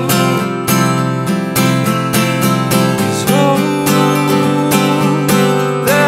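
Acoustic guitar strummed in steady chords, an instrumental stretch with no singing.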